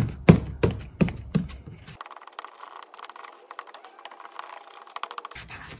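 A spreader scraping and tapping against a paper plate while Bondo body filler is stirred together with its hardener. It makes sharp strokes about three times a second for the first two seconds, then a fainter, quicker scraping.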